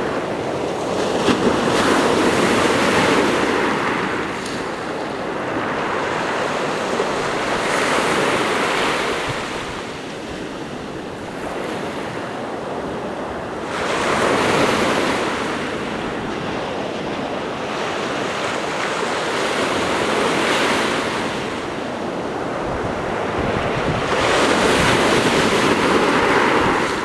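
Sea waves breaking and washing on the shore in a slow rolling rhythm, each surge swelling and fading every few seconds, with wind buffeting the microphone.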